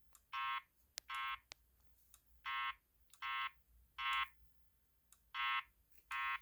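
EST Genesis speaker strobe sounding the temporal-three (code 3) fire evacuation tone: groups of three short beeps, each group followed by a pause of about a second.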